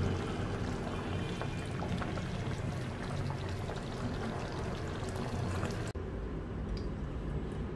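Liquid pouring, a steady noisy rush; about six seconds in the sound cuts abruptly to a duller one with the high end gone.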